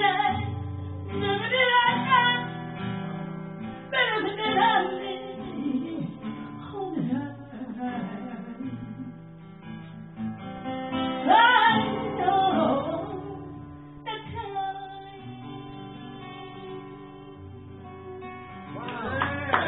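A woman singing a slow blues song live, accompanying herself on a strummed acoustic guitar, with sung phrases coming and going over the guitar. For the last few seconds the guitar rings on alone, with no voice.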